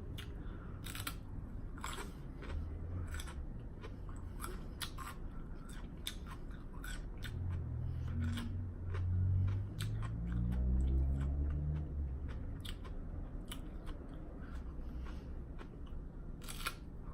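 Close-miked chewing of a lettuce wrap: many short wet crunches and mouth clicks. A low, muffled hum-like sound rises through the middle and then fades.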